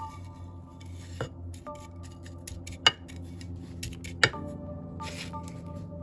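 Hard clinks and knocks against a terracotta saucer as cactus and succulent soil is put into it: a few sharp clinks, the loudest two just before three and just after four seconds in, with lighter ticks between them.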